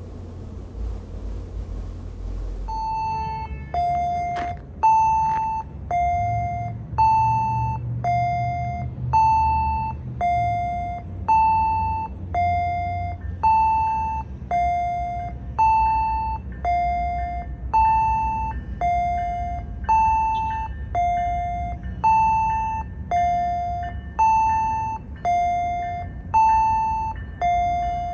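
A two-tone warning chime rings over and over, alternating a higher and a lower note about once a second. Each note starts sharply and fades. It begins about three seconds in, after a short stretch of low car road noise.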